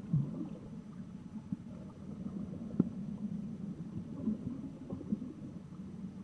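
Underwater water noise around a camera: an uneven low rumbling and gurgling, with scattered small clicks and a sharper pop about three seconds in.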